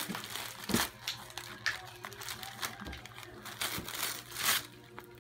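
Gift wrapping paper crinkling and tearing as a small child rips it off a present, in irregular bursts, the loudest about a second in and near the end.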